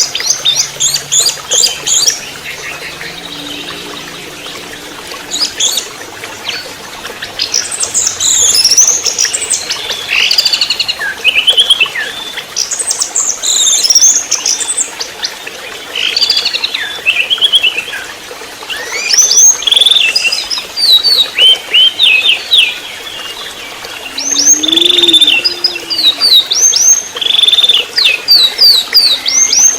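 Young orange-headed thrush (anis merah trotol) singing: fast, varied whistled and chattering phrases delivered in repeated bursts with short pauses between them.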